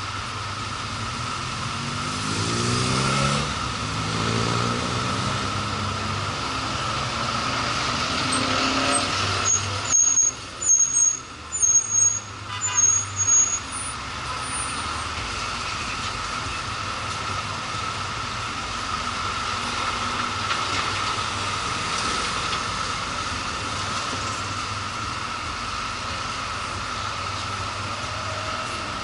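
Motorcycle ridden in road traffic, the engine note rising as it accelerates a couple of seconds in, over steady road and wind noise. About ten seconds in comes a run of several loud, short, high-pitched squeals.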